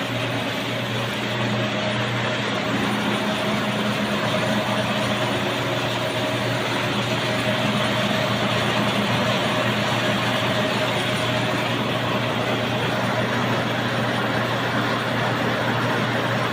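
Machine-shop machinery running steadily: an even mechanical noise with a constant low hum and a faint steady whine above it.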